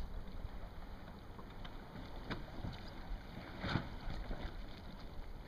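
Wind rumbling on the microphone, with a couple of short knocks or water slaps, the clearest a little past the middle.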